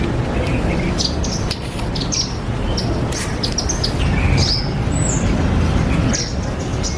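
Backyard birds chirping, with many short, high notes and quick down-slurred calls throughout, over a steady low rumble.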